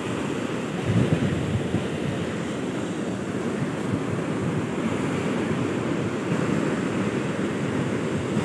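Sea surf breaking and washing up a sandy beach, a steady rushing noise, with wind buffeting the microphone.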